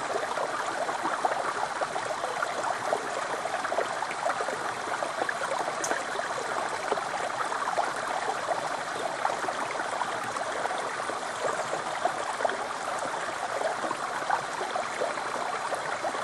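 Small stream running down a sloping rock slab and spilling into a pool: a steady rush of water full of small splashes.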